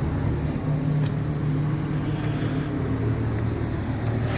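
An engine of nearby farm machinery running steadily, with a low even hum; its pitch steps up slightly about a second in.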